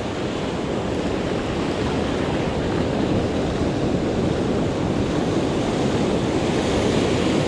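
Ocean surf breaking and washing up the sand, a steady rushing noise that swells slightly, with wind on the microphone.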